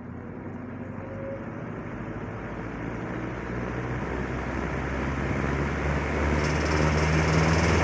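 1970s Toastmaster 15-inch box fan starting up: the motor hum and the rush of air from the blades grow steadily louder as the fan comes up to speed.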